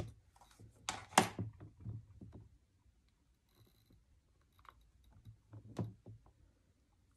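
Light plastic taps and clicks as a white ink pad is dabbed against a clear stamp mounted on the hinged plate of a Stamparatus stamping platform, several quick taps in the first couple of seconds. A few more clicks follow later as the plastic plate is pressed down onto the paper and lifted again.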